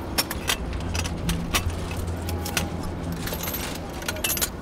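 Sharp metallic clicks and rattles of a street payphone being worked by hand: the handset cradle and coin mechanism jiggled on a payphone that isn't working. A steady low traffic hum runs underneath.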